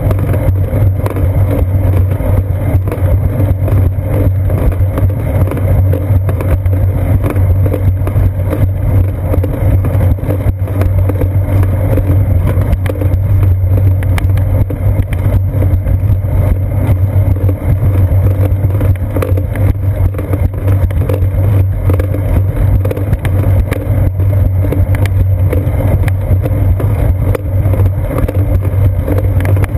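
Steady, loud low rumble of a bicycle rolling along a concrete sidewalk, picked up through a seat-post-mounted GoPro Hero 2, with constant small rattling ticks from the mount shaking and wind noise on the microphone.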